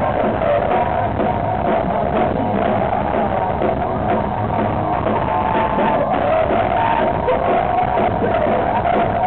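Loud live rock music: a band playing with a male lead vocal.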